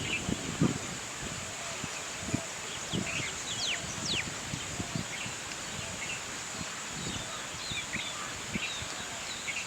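Rural outdoor ambience: small birds chirping in short calls, with a couple of quick falling whistles about three and a half to four seconds in, over a steady high insect-like hum and soft irregular rustles and knocks close by.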